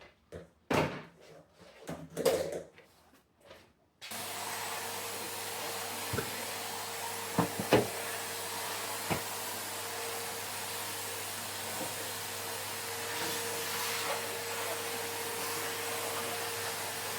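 A few knocks and clicks like cupboard doors, then an electric cleaning appliance starts with a steady whirring hum and runs evenly, with a few clicks over it, before cutting off suddenly at the end.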